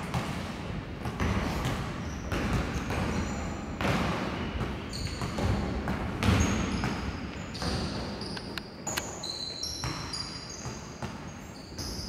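Basketball game on a hardwood gym court: a ball bouncing and repeated thuds of play, with sneakers squeaking in short high chirps through the second half, echoing in a large gym.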